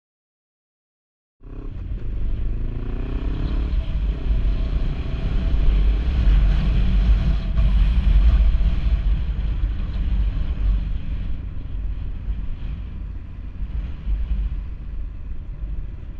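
Motorcycle engine, heard from the rider's position, cutting in about a second and a half in and pulling up in revs, dropping at a gear change and rising again, then running steadily at road speed under heavy wind rumble on the microphone.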